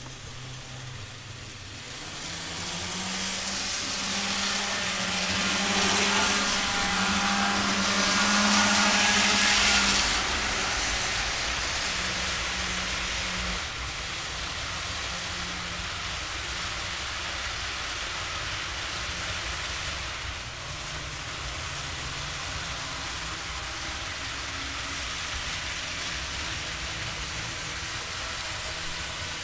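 Model freight train running on a layout: the locomotives' motors hum steadily while the wheels of the long string of cars rattle over the track. It grows louder over the first few seconds, is loudest around six to ten seconds in as the train passes close, then runs on more evenly.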